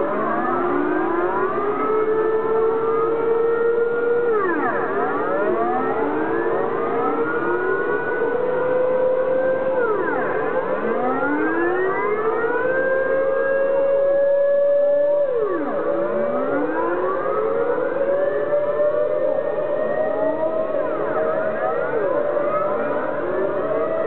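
Civil-defence air-raid sirens wailing, several at once, their tones overlapping: one held tone creeps slowly upward while others sweep down and back up every few seconds. This is the monthly noon siren test held on the first Monday of the month.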